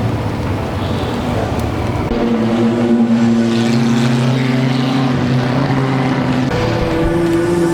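Car engine running with a steady drone, its pitch stepping up about six and a half seconds in.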